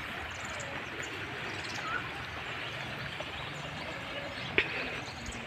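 Steady outdoor background noise with a few faint chirps and one sharp click about four and a half seconds in.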